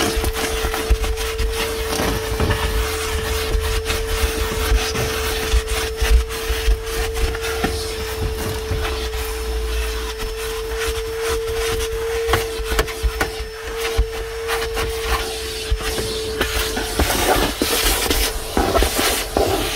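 DeWalt 9-gallon 5 HP wet/dry shop vacuum running with a steady whine, with frequent knocks and scraping as the hose and nozzle work over the surfaces. The whine stops near the end.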